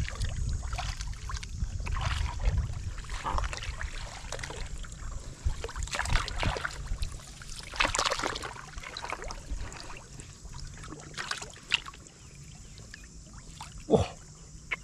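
Shallow pond water splashing, sloshing and dripping as a woven bamboo basket is worked through it and lifted, with hands moving in the water. A brief falling tone stands out near the end.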